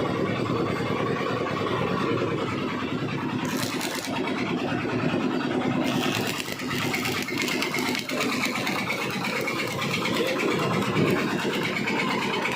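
Stick welding arc crackling and hissing steadily; the hiss grows brighter about six seconds in.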